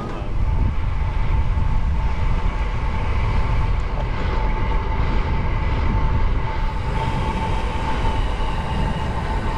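Wind buffeting the microphone of a bike-mounted camera on a moving road bike: a heavy, steady rumble that swells about half a second in. A thin, steady whine sits above it.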